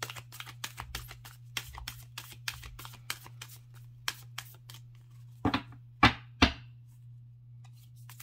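Oracle card deck being shuffled by hand: a quick run of light card clicks, about four a second, for the first four seconds or so. Then three louder knocks about half a second apart as cards are set down on the table.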